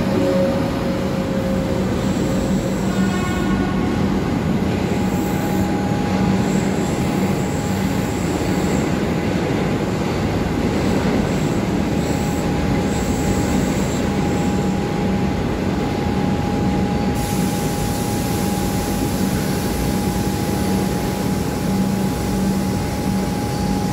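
Melbourne suburban electric train coming to a stop at the platform and then standing there. There is a short squeal in the first second or two. After that comes a steady hum and a thin, even high whine over a constant rumble.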